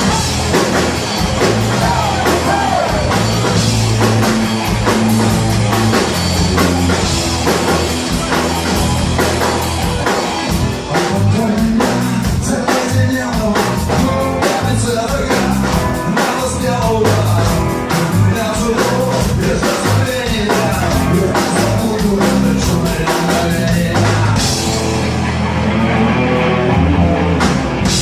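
A rock band playing live, with drum kit, bass and guitar and some singing. The cymbals drop out for a few seconds near the end.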